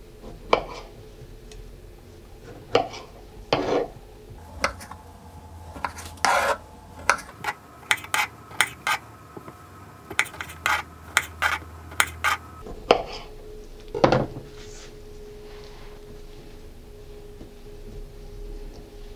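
Kitchen knife halving Shine Muscat grapes on a plastic cutting board: a run of sharp knocks as the blade comes down on the board, coming fastest in the middle and stopping about two-thirds of the way through.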